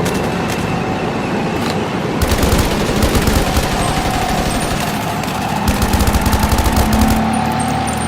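Battlefield automatic gunfire: long bursts of rapid fire about two seconds in and again near six seconds, over a continuous din of combat noise.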